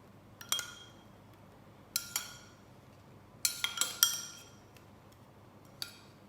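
A spoon clinking against a bowl in scattered taps, each leaving a brief ringing note, with a quick run of clinks about three and a half seconds in, as tomato sauce is spooned onto the cauliflower.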